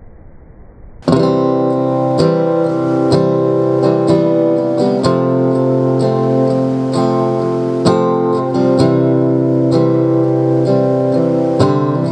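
Acoustic guitar music, strummed and plucked, starting abruptly about a second in after faint hiss, played as a sound test through a pair of small DIY two-way bookshelf speakers with 4-inch woofers and dome tweeters.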